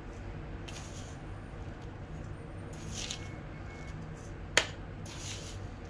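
Sugar spooned onto grated coconut in a bowl: a few faint, short hisses of pouring grains and one sharp click about four and a half seconds in, over a steady low hum.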